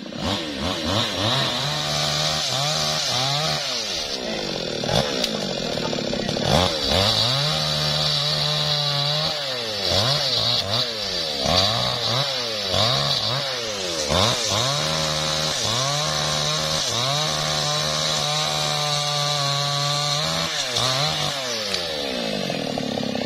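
New West 628 two-stroke chainsaw cutting through branches of a felled tree, the engine revving up and dropping back again and again, with a few longer stretches held at full throttle.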